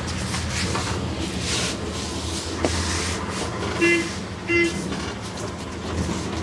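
Street traffic running as a steady rumble, with two short vehicle horn beeps about four seconds in.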